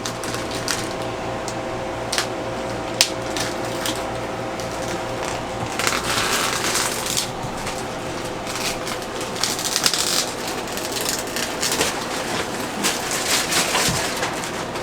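Irregular rustling, clicks and knocks of things being handled and moved, over a faint steady hum.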